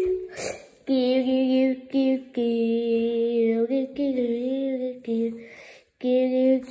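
A voice singing long held wordless notes, one after another with short breaks between them, one note wavering about four seconds in.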